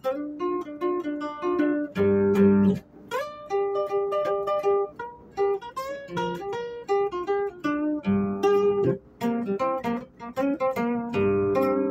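Guitar music: a melody of single plucked notes, with a fuller chord and bass note every few seconds.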